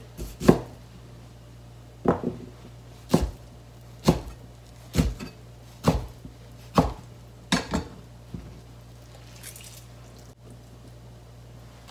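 Chef's knife chopping boiled spinach on a plastic cutting board: about ten single cuts, roughly one a second, each a sharp knock of the blade on the board, stopping about eight seconds in.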